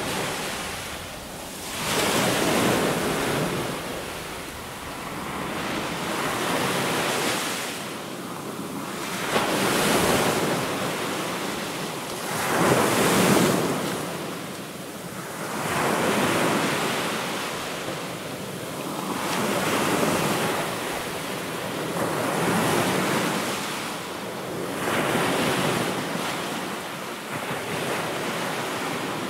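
Ocean waves washing in and receding, the surf swelling and fading about every three seconds.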